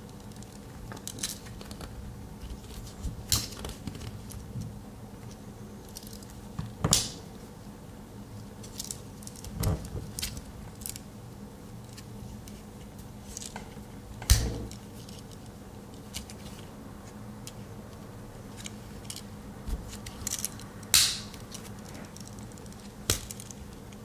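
Victorinox Explorer Swiss Army knife being handled, its tools opened and closed: scattered small metal clicks and ticks, with a few sharp louder snaps spread through.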